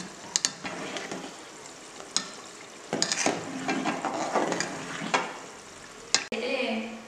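Rice boiling in a foaming aluminium pot as a ladle stirs it, knocking and scraping against the pot's sides several times over a steady bubbling hiss. The rice is being parboiled for dum biryani.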